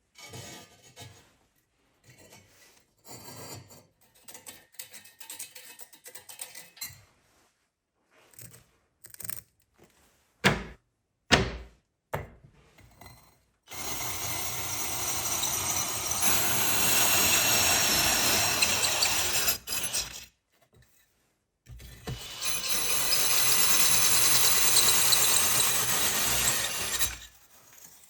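Workshop assembly sounds: light handling and rubbing of metal parts, two sharp knocks about ten seconds in, then two long runs of a steady rasping tool noise, each about six seconds, with a short pause between them.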